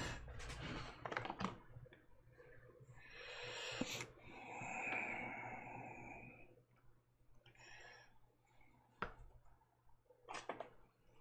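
Faint clicks and taps of a paintbrush working between a plastic paint palette and the canvas, with a long soft breathy hiss in the middle.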